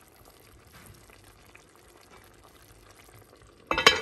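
Soft simmering of liquid in an enamelled cast-iron pot, with a faint bubbling crackle. Near the end comes a sudden loud clatter of the pot's heavy cast-iron lid being handled and set on.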